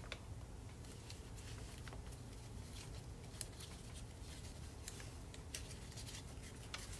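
Light origami paper crinkling and ticking as fingers fold and crease a narrow strip, in faint irregular small clicks and rustles over a low steady room hum.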